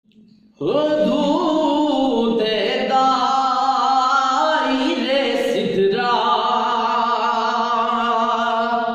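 A young man singing solo, holding long drawn-out notes with a wavering vibrato; the voice comes in about half a second in.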